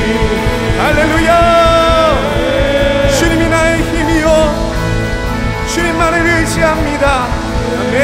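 Live worship band music from acoustic guitars, keyboard and drums, with a voice holding long wordless notes over it, ending a song.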